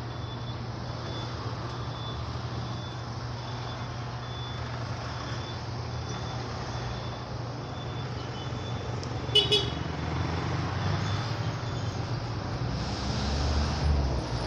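A vehicle engine rumbling steadily under a high electronic beep that repeats evenly about one and a half times a second, the pattern of a reversing alarm. A sharp click sounds about nine seconds in, and the beeping stops a little later.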